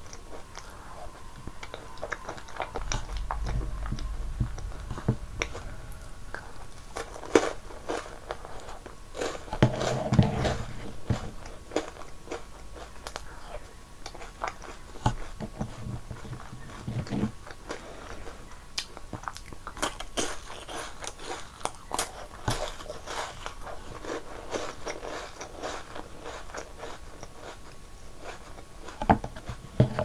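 Close-miked eating: irregular crisp crunching and chewing of snack cookies and a rolled wafer stick soaked in strawberry milk and shaved ice, with wet mouth sounds between bites.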